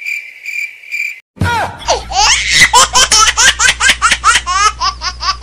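Cricket-chirp sound effect, a steady high pulsing trill, that cuts off about a second in. After a brief gap, a rapid run of high, squeaky laughing sound effect over a low hum.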